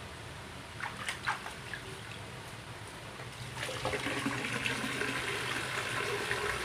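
Water sloshing and splashing in a plastic basin as a part is moved in it, then from about three and a half seconds in a steady stream of tap water pours onto the part and into the basin. This is the rinse of a freshly hydro-dipped fuse box cover.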